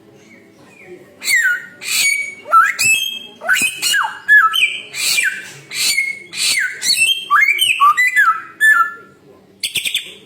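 A samyong bird singing a rapid, varied series of loud whistles and chattering calls, many sliding sharply down in pitch, starting about a second in.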